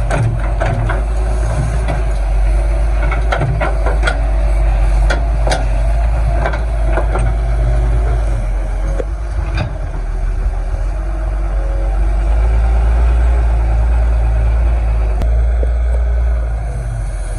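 Excavator's diesel engine running steadily, with scattered sharp knocks and clanks over the first half.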